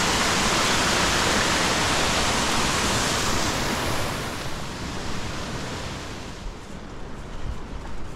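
Small waterfall of muddy runoff rushing over rocks into a stony stream bed, a loud steady rush. It fades away after about four seconds, leaving a quieter background with a few faint ticks.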